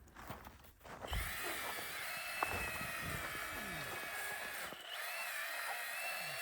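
Battery-powered chainsaw cutting a tree: a steady high motor whine starting about a second in, briefly dipping near the end.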